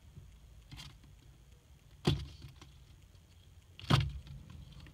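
Two sharp knocks about two seconds apart, each with a short low thud after it, with a fainter knock near the start.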